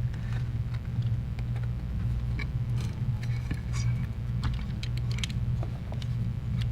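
Small hand tools scratching and clicking lightly on a phone frame while holes are opened in an adhesive strip. A steady low electrical hum sits underneath.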